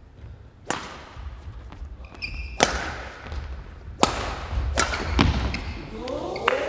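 Badminton rally: a shuttlecock struck back and forth with sharp racket cracks, five or six hits about a second apart. Between hits, shoes squeak briefly on the sports-hall floor and footfalls thud.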